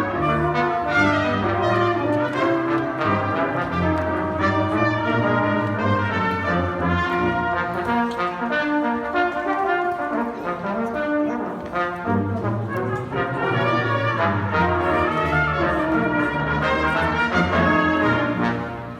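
Middle school band playing, with brass to the fore: trumpets and trombones over sustained low brass notes. The music stops just before the end.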